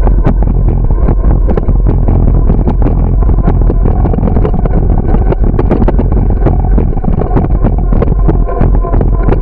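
Loud rumble of wind on the microphone and tyre noise from a moving bicycle on a concrete path, with frequent irregular clicks and rattles.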